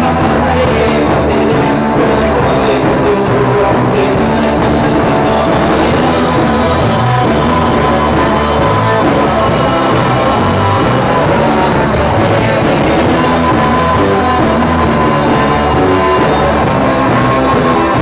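Rock music: a full band track with electric guitar playing steadily throughout.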